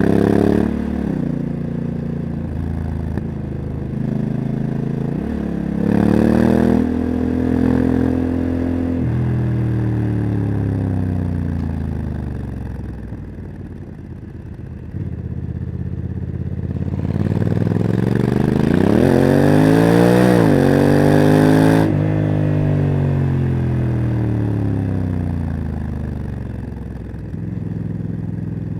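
Honda CRF1100 Africa Twin's parallel-twin engine through a Leo Vince exhaust, accelerating with the pitch climbing and dropping sharply at each upshift of the DCT gearbox. It eases off through the middle, winds up to its highest revs about two-thirds through, then drops and falls away as the bike slows.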